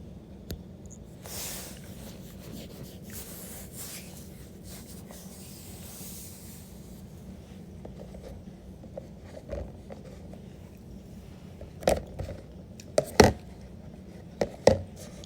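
Faint scraping and rubbing, then a handful of sharp clicks or knocks near the end, the loudest pair close together.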